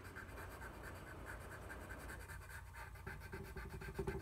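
Pencil scratching on paper in quick, light back-and-forth shading strokes, faint and rapid.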